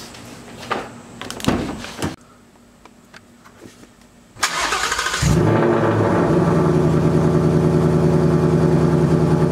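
Ford Mustang engine started by push button: a short crank about four and a half seconds in, then the engine catches and settles into a steady idle. A few clicks and knocks come before it.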